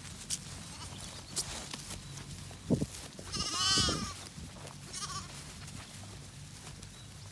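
A Zwartbles lamb bleating once loudly about three and a half seconds in, followed about a second later by a shorter, fainter bleat.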